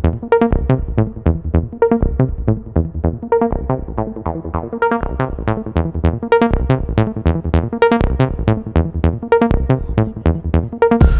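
Electronic background music: a quick run of short plucked synth notes, about four a second, with the full beat dropped out and coming back in near the end.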